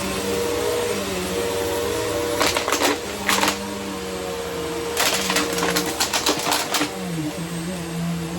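Upright vacuum cleaner running with a steady hum that shifts slightly in pitch, broken by rattling clicks about two and a half seconds in and again from about five to seven seconds in.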